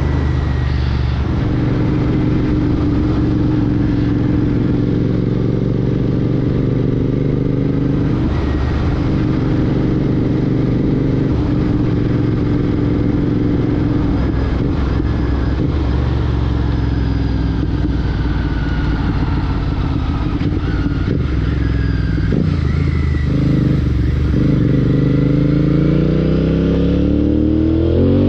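Royal Enfield Continental GT 650's parallel-twin engine running through a Red Rooster Performance aftermarket exhaust on the move. The note rises and falls with the throttle and climbs steadily as the bike accelerates near the end.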